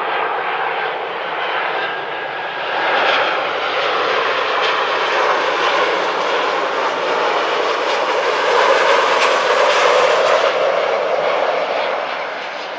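Boeing 737-800's twin CFM56 turbofan engines as the airliner passes low overhead on its landing approach. It is a broad jet rush that swells about three seconds in, is loudest near the tenth second, and eases off near the end.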